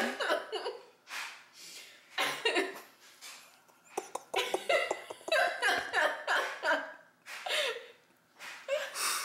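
Laughter in short, breathy bursts and chuckles, coming and going with brief pauses.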